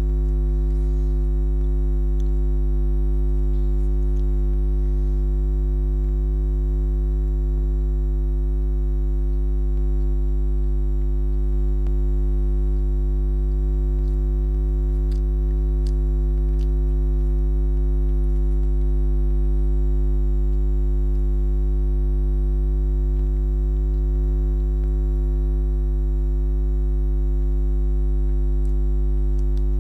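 Loud, steady electrical mains-type hum and buzz that does not change at all, a recording fault that drowns out the eating sounds; only faint scattered ticks show above it.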